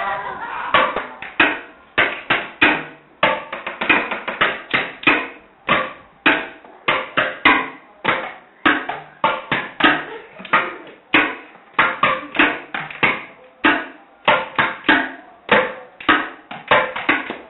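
Improvised percussion: household objects struck as makeshift drums, a string of sharp knocks at about two or three a second in an uneven rhythm.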